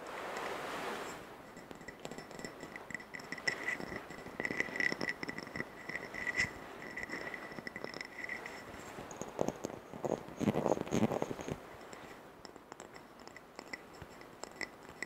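Fingernails tapping and scratching on a glass jam jar of soil, the glass giving a faint repeated ring. About ten seconds in comes a cluster of louder knocks as the jar is handled.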